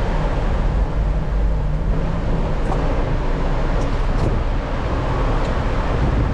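Steady low rumble of a car running and moving slowly, with engine and road noise and no sudden events.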